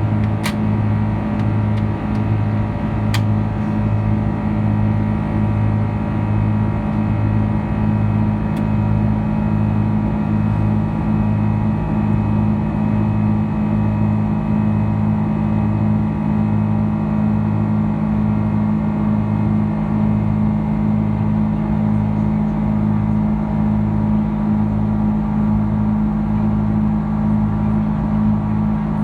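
Airbus A330-200's twin jet engines heard from inside the passenger cabin: a steady low drone with a slow pulsing beat about once a second.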